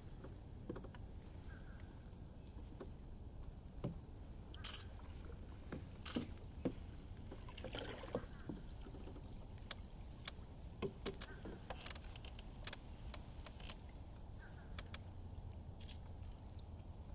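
Kayaks moving on still water: scattered light knocks and splashes from paddles and hulls over a low, steady rumble.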